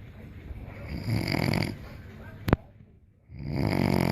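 A person snoring heavily: two drawn-out snores, one about a second in and another near the end, with a single sharp click between them.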